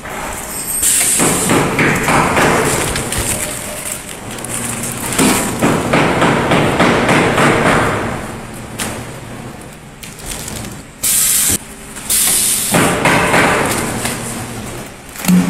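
Horizontal flow-wrapping machine running as it wraps frozen chicken blocks in plastic film: a loud, busy mechanical clatter that swells and fades, with short sudden hissing bursts about a second in and twice near the end.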